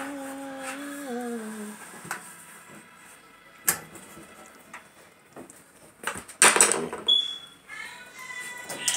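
A voice holds a sung note for about two seconds, then scattered knocks and a burst of clatter from clothes-dryer parts being handled during the repair, with a short high tone followed by a steady tone near the end.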